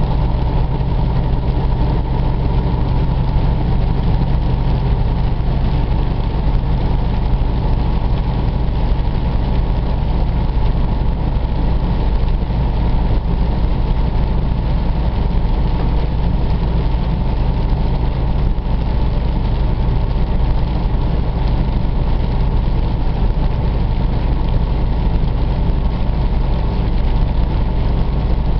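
Freightliner Cascadia semi truck cruising at highway speed, heard inside the cab: a steady low diesel drone over an even hiss of tyres on the wet, rain-soaked road.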